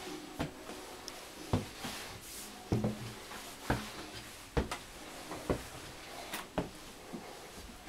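Footsteps climbing a staircase and then walking across a floor, a short thud about once a second.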